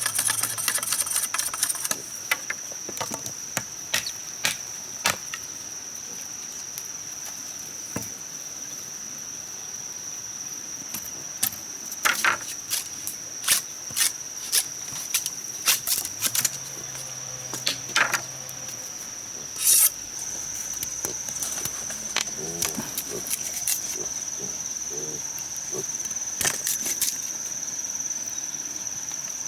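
Steady high-pitched drone of insects such as crickets or cicadas, with scattered sharp knocks and taps, most of them in a run through the middle.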